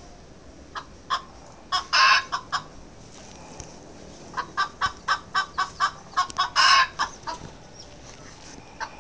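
Chicken clucking: scattered short clucks, a longer call about two seconds in, then a quick run of clucks at about three a second ending in another long call near seven seconds.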